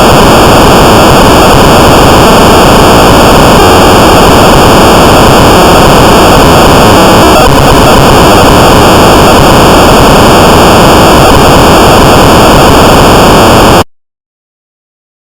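Very loud, steady static noise, a harsh hiss across all pitches, that cuts off abruptly a little over a second before the end, leaving silence.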